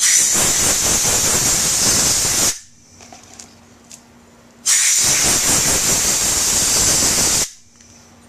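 DIY siphon soda blaster, a compressed-air blowgun drawing baking soda up a hose, blasting a motorcycle carburetor float bowl: two long, loud hissing blasts of about two and a half seconds each, with a short pause between. Each blast starts and stops abruptly.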